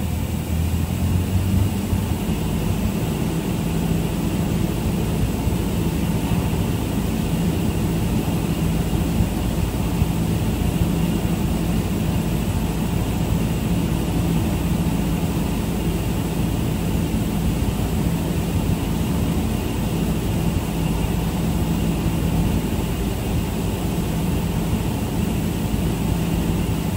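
Cessna 172 Skyhawk's piston engine and propeller heard from inside the cockpit, a steady drone on final approach, with a small change in the low tones about a second in.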